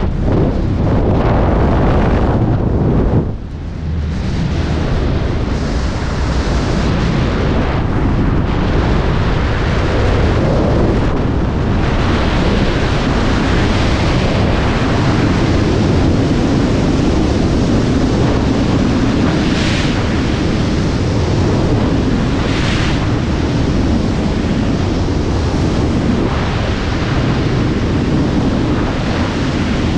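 Loud, steady rush of freefall wind buffeting a skydiver's action-camera microphone, with a short dip about three seconds in.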